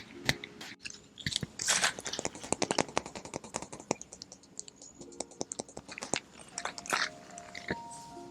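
Fingers tapping rapidly on the surfaces of an excavator, making a dense run of short clicks and knocks. Some taps leave a brief ringing tone.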